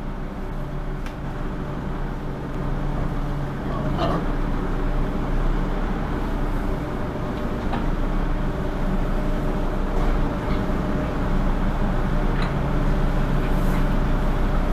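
Merlo 37.10 telehandler's diesel engine running steadily, growing a little louder over the first few seconds, with a few brief sharp noises on top.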